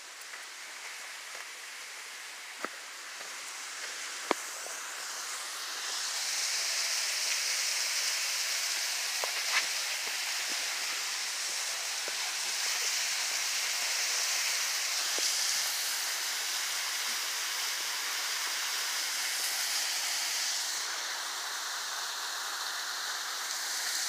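Rushing water of a waterfall, a steady hiss that swells about five seconds in and then holds, with scattered clicks of footsteps on the forest floor.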